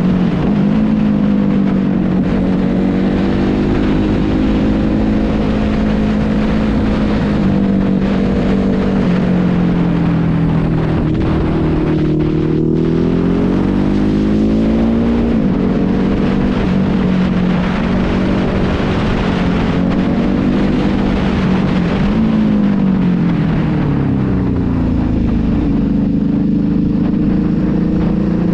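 A vehicle engine running hard while driving, its pitch climbing and dropping repeatedly with throttle and gear changes.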